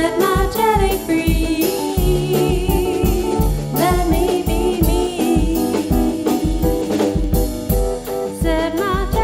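A song for voice, piano and drum kit: a woman sings long notes with vibrato over piano chords and a steady drum beat.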